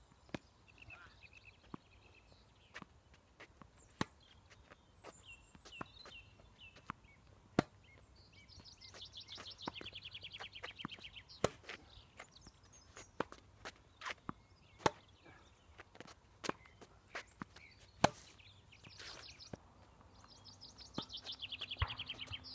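Tennis rally: sharp pops of the ball off the rackets and its bounces on the hard court, about one every second or so, some loud and close, others fainter from the far end.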